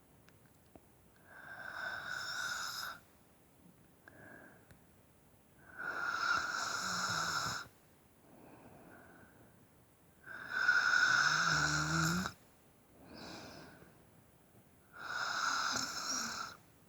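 Snoring: four loud snores, each about two seconds long and coming every four to five seconds, with softer breaths in between.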